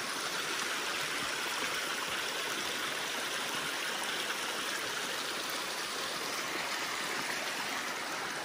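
Creek water running steadily over rock, a constant even rush with no break.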